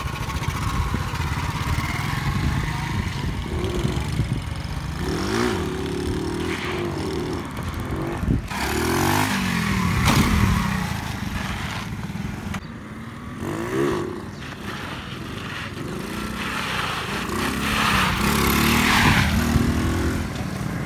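Small motorcycle engines revving up and falling back again and again as riders pass close by, attempting wheelies, with a sharp knock about eight seconds in.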